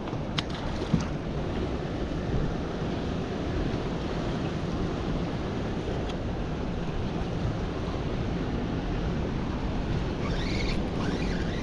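Wind buffeting the microphone and water lapping around a small boat, as a steady rushing noise. There are two sharp clicks about half a second and a second in, and a brief burst of high squeaks near the end.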